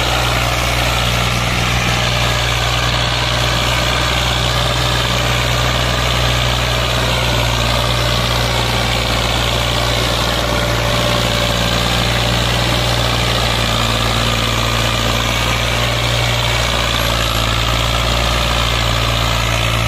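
Tractor diesel engine running steadily under a heavy load as it hauls a brick-laden trailer, so heavy that the tractor's front wheels lift off the ground. Its low, even drone holds at the same pitch and loudness throughout.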